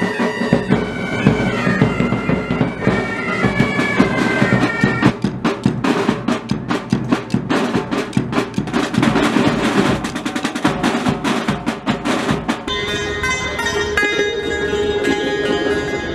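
Pipe band playing: bagpipes carry a melody over the drums, then about five seconds in the pipes stop and the snare and bass drums play a drum break on their own. Near the end the drumming gives way to steady held notes.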